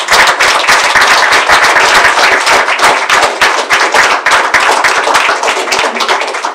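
Audience applauding: many hands clapping in a dense, steady run that begins to taper off near the end.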